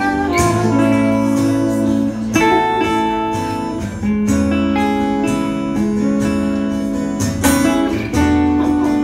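A semi-hollow electric guitar and an acoustic guitar playing chords together, each chord held for a second or two before the next is strummed.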